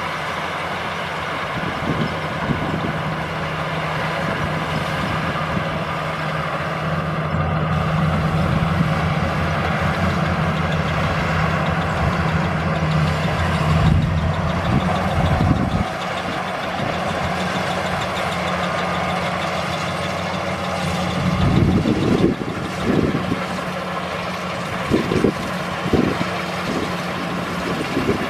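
Combine harvester's engine running steadily, its pitch shifting about halfway through, with several low thumps near the end.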